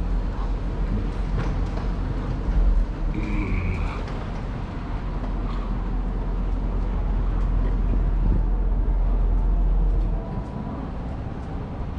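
Steady low rumble of outdoor city background noise, traffic-like, with a brief high steady tone about three seconds in.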